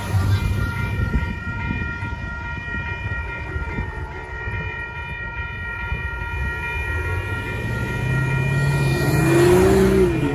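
Railroad crossing warning bells ringing steadily while the gates come down. From about eight seconds in, an approaching diesel locomotive's horn sounds and grows louder.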